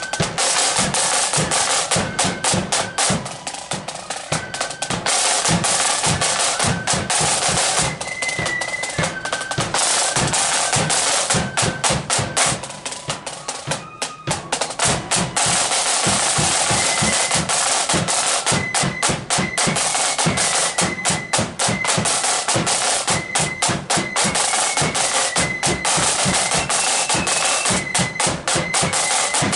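Marching flute band playing: rapid snare drum strokes and rolls over bass drum beats, with flutes carrying a melody. The drumming thins briefly about halfway through, then comes back in full with the flutes.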